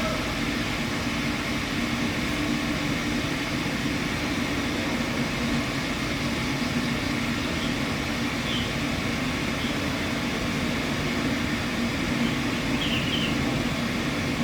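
Steady low rumbling background ambience with a few short, high bird chirps in the second half.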